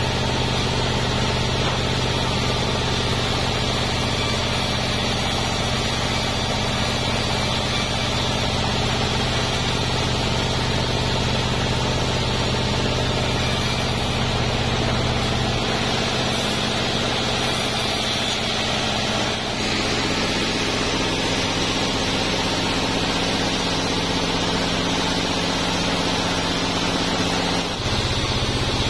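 Taiwanese band sawmill running steadily, its drive and blade giving a constant machine hum while it rips durian wood into beams. The pitch of the hum shifts about two-thirds of the way through and again near the end.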